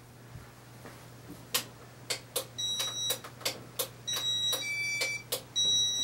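1988 Casablanca Victorian gallery ceiling fan running its demo mode: a string of sharp clicks from its controls, joined about halfway by high electronic beeps that step between several pitches, over a steady low hum as the fan starts turning.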